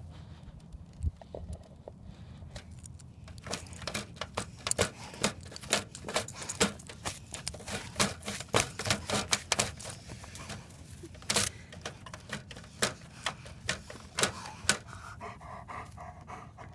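A dog's metal collar tags jingling and clinking irregularly as it paws and digs at dirt under a wire fence, with scraping of claws in the soil. The clinks start a few seconds in and thin out near the end.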